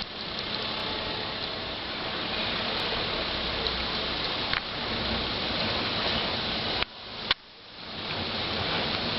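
A steady hiss that cuts out suddenly about seven seconds in, followed by a sharp click, then swells back up.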